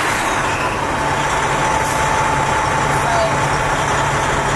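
Detroit Diesel Series 60 inline-six diesel in a 1997 Freightliner FLD120 semi truck idling steadily just after being started with the push button, with a faint steady high tone over the engine noise.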